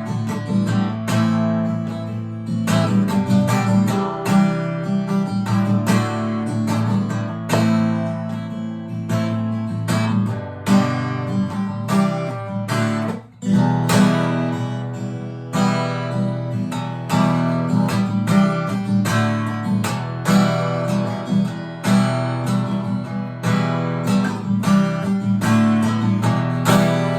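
Instrumental music led by a strummed acoustic guitar, a steady run of chords with a short break about halfway through.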